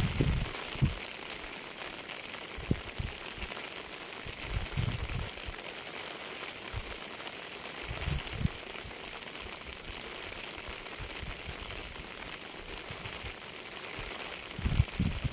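Steady rain falling, an even hiss of drops on surfaces, broken by occasional low thuds, a few of them close together near the end.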